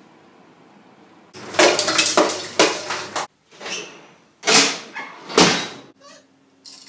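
Metal clatter and bangs of a kitchen oven's door and wire racks as a vinyl record is thrown in: a rattling clatter lasting about two seconds, then two loud bangs about a second apart.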